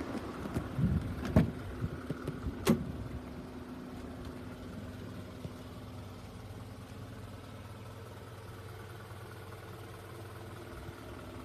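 Isuzu Elf dump truck's diesel engine idling steadily, with a few sharp clicks or knocks in the first three seconds.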